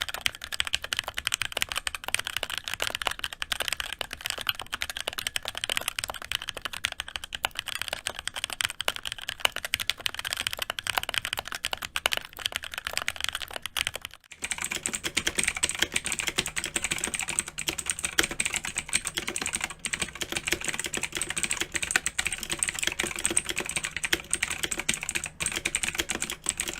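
Fast, continuous typing on a mechanical keyboard, many key switches clacking in quick succession. About fourteen seconds in, the typing stops for a moment and then resumes with a sharper, higher-pitched click.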